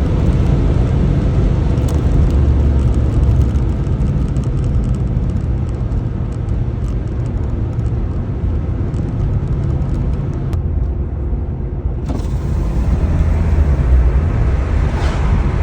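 Ford Focus ST225's turbocharged 2.5-litre five-cylinder engine running under way with road noise, on a tune fitted with a TurboSmart wastegate. The higher hiss drops away for a moment about eleven seconds in, then comes back and grows near the end.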